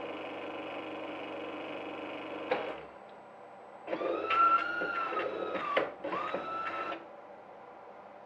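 Espresso machine's pump running steadily while the shot pours, then shutting off with a click about two and a half seconds in. A small motor in the machine then whirs twice, about two seconds and then one second, its whine rising and falling slightly.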